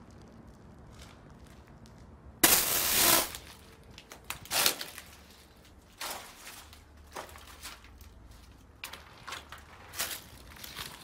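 Footsteps crunching over debris and dry grass, irregular and spaced about a second apart, with a loud rustling noise just under a second long about two and a half seconds in.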